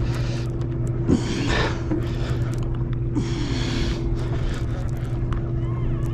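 Steady drone of a sportfishing boat's engine, with a man breathing hard in short gasps while he cranks a reel against a hooked bluefin tuna.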